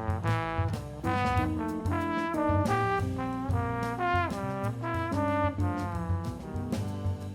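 Music: a horn melody of short notes with some bends in pitch, over bass and drums.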